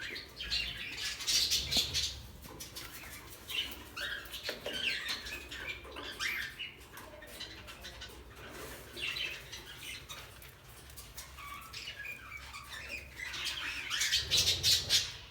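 Budgerigar chicks squawking and chirping in short repeated calls, with scratchy clicks and rustling among them; the calls are loudest about a second in and again near the end.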